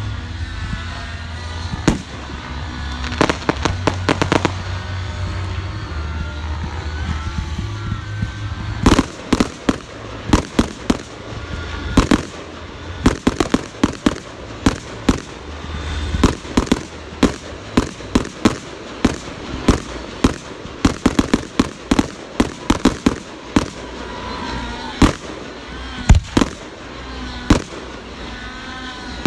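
Fireworks going off: a quick string of bangs a few seconds in, then a dense run of sharp reports from about nine seconds on, thinning to a few spaced bangs near the end.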